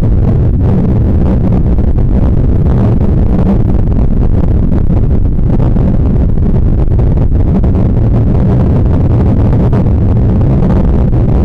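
Homemade creepy sound effect: a loud, steady low rumbling drone with no clear pitch.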